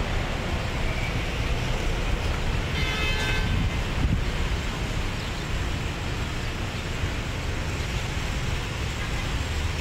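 Steady outdoor rumble and hiss, with a brief high-pitched tone about three seconds in.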